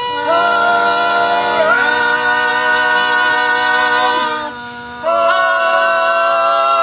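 Vocal group singing long held notes in close harmony at the end of a song; the chord shifts once, drops away briefly about four and a half seconds in, and a new held chord comes in about five seconds in.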